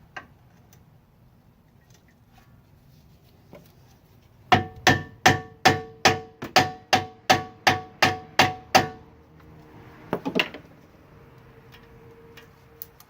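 Hammer striking steel about a dozen times, roughly three blows a second, each one ringing, to spread open the ball-joint pinch clamp so the ball joint will come out. A couple of lighter metallic clicks follow.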